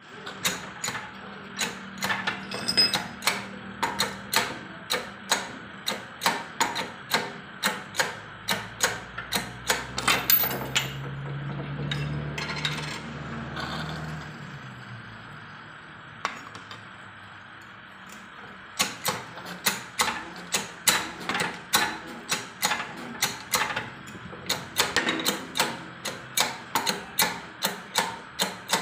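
Steady mechanical clicking, about two clicks a second, as a press is worked to push a crankshaft ball bearing off through a bearing separator. A low hum comes up about a third of the way in and fades by the middle, and the clicking stops for a few seconds before starting again.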